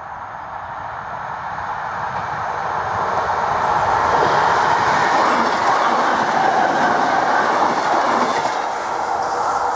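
Belgian local passenger train, an electric multiple unit, approaching and passing at speed: a noisy rush of wheels on rails that grows steadily louder and is loudest from about four to eight seconds in.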